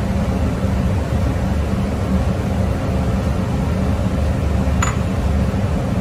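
Steady low rumbling background noise at an even level, with a single short click about five seconds in.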